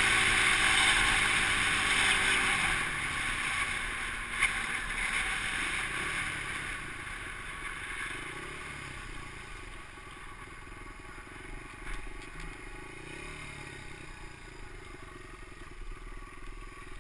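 Dirt bike engine and wind noise on the bike-mounted camera, both fading as the bike slows from speed. The engine's pitch falls, and it then runs at low revs with a few small rises and falls in pitch.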